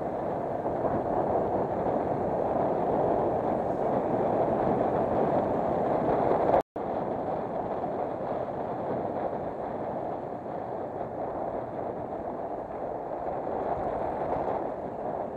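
Steady rush of wind and road noise from a motorcycle cruising along a street, cutting out for an instant about seven seconds in.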